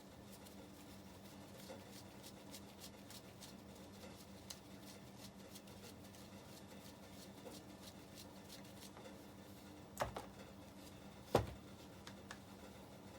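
Small clicks and ticks of parts and tools being handled during a scooter carburettor strip-down, with two sharp knocks, about ten seconds in and again a second and a half later, as hard parts are set down or knocked.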